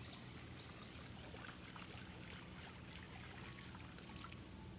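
Faint, steady outdoor background noise with an even high-pitched hiss or drone and a low rumble, with no distinct event standing out.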